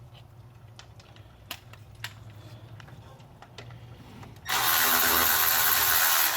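A few light clicks, then, about four and a half seconds in, a Milwaukee 12V cordless ratchet starts running with a steady motor whir, spinning out an old water pump bolt that has already been broken loose by hand.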